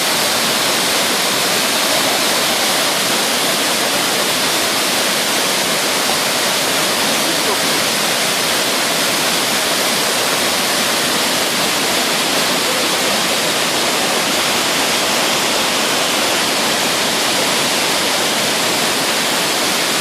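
Waterfall rushing: a steady, loud wash of falling water that does not change throughout.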